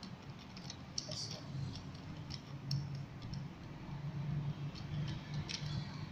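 Light, scattered plastic clicks and ticks from a plastic camera tripod's head and adjustment knob being loosened and adjusted by hand, over a steady low hum.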